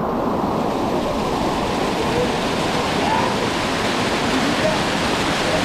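Waterfall: white water pouring steadily down a rocky river cascade.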